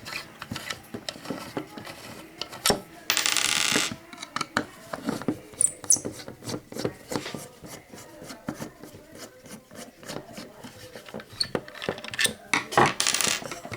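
Plastic satellite speaker housing and its small parts being handled and taken apart: a run of clicks, taps and light rattles, with two short rasping noises, one about three seconds in and one near the end.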